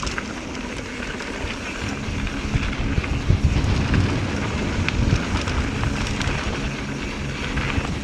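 Mountain bike rolling down a rocky trail: tyres rumbling over rock with frequent small knocks and rattles, and wind buffeting the microphone.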